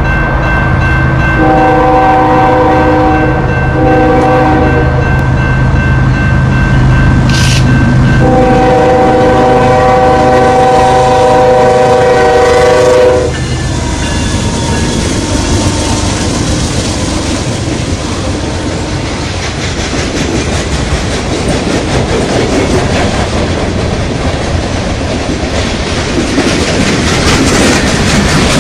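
Norfolk Southern train's locomotive horn sounding two short blasts and then a long one of about five seconds, over a low engine rumble. Once the horn stops, about halfway through, the train's wheels clatter steadily over the rail joints as the cars pass.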